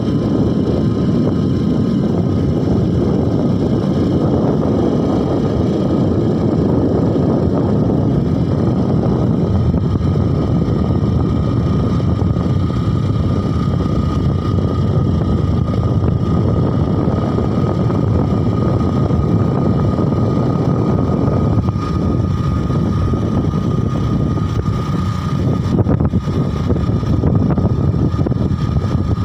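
Motorcycle running at a steady cruising speed, its engine noise mixed with heavy wind rush on the microphone and a thin, steady whine.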